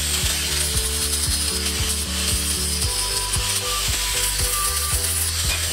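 Background music with a steady ticking beat and a bass line that moves in steps, with short higher notes joining about halfway through.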